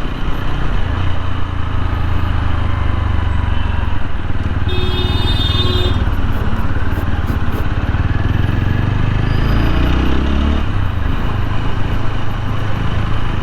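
TVS Apache RTR 160 4V single-cylinder engine running as the motorcycle is ridden on the road, with wind rushing on a helmet-mounted microphone. The engine note shifts about ten seconds in.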